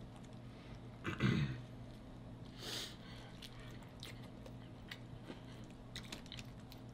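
Close-miked eating of sauced fried chicken wings: wet chewing, lip smacks and small mouth clicks as meat is pulled off the bone, with one louder low sound about a second in, over a faint steady hum.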